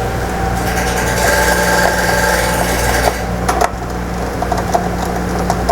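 Motherboard screws being undone inside a desktop PC case: a whirring rasp from about half a second to three seconds in, then several light clicks and taps of metal parts, over a steady hum.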